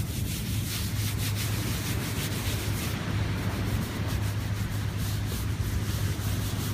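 Hands rubbing dry beach sand into raw selvedge denim jeans: quick, repeated scrubbing strokes of sand against cloth, over a steady low hum.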